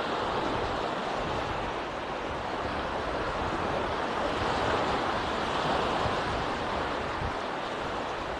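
Small waves washing onto a sandy beach, a steady wash that swells a little midway.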